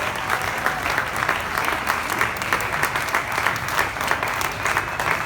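Audience applauding steadily, with dense, continuous clapping.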